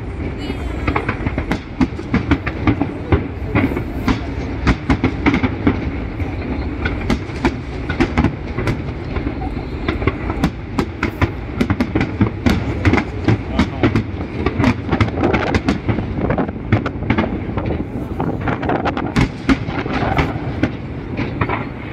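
Fireworks going off in quick, irregular succession: a steady run of sharp bangs and crackles over a continuous low rumble.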